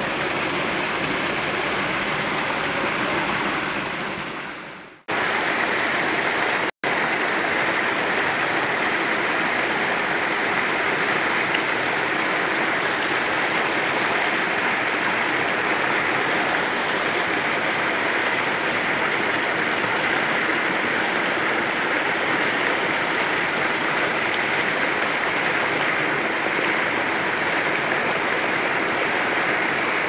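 Small stream cascading over boulders, water splashing steadily into rocky pools. The sound fades away about four seconds in and comes back suddenly at five seconds, with a brief cut just before seven seconds.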